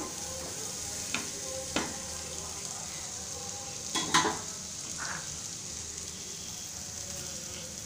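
Chopped cabbage sizzling in oil in a pan while a spatula stirs it. Short scrapes and knocks of the spatula against the pan come about a second in, near two seconds, and twice around four seconds.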